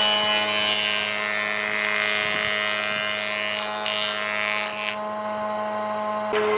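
Electric power tool running steadily on wood: a constant motor whine with a rougher noise of the work over it, which thins out about five seconds in. The whine's tone shifts just before the end.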